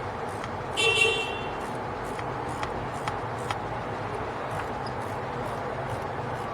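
Hand wrench work on a bolt, with a few separate sharp clicks, over a steady background hiss. About a second in there is a brief high-pitched toot, the loudest sound.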